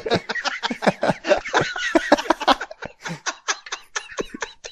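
Men laughing in rapid short pulses, tapering off toward the end.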